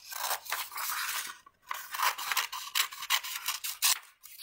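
Scissors cutting through folded paper: a run of snips with a short pause about a second and a half in, ending shortly before the end.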